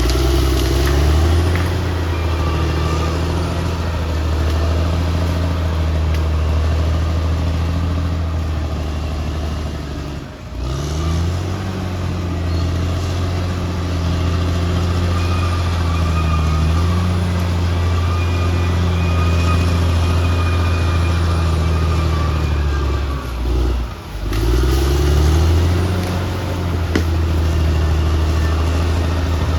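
Bulldozer diesel engine running steadily under load. Twice its note drops briefly and then climbs back up as it revs.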